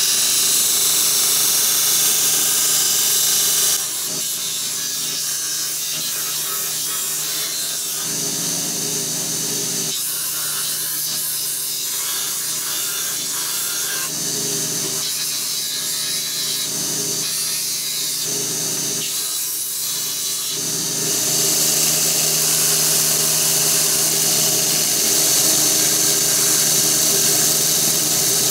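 Belt sander running steadily while the edge of a carbon fibre sheet is ground against its belt: a motor hum under a grinding hiss. The hiss eases a little about four seconds in and grows louder again near twenty seconds.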